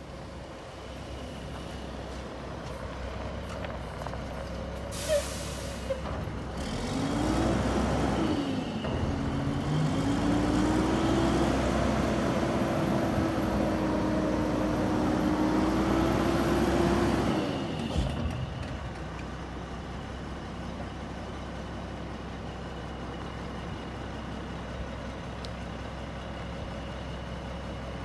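Mack LE garbage truck's diesel engine idling, with a short air-brake hiss about five seconds in. The engine then revs up for about ten seconds with a steady whine while the Heil carry can is hoisted over the cab to empty into the hopper, and settles back to idle after a knock near the end of the lift.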